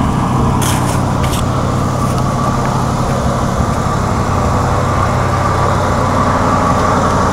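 1978 GMC motorhome's Oldsmobile V8 idling steadily.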